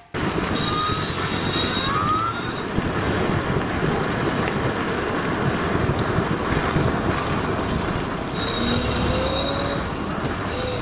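Loud, steady rush of wind and road noise on a microphone moving along with motorcycles on a road. A thin high whine sounds twice, first early and again from about eight seconds in, with a faint rising tone near the end.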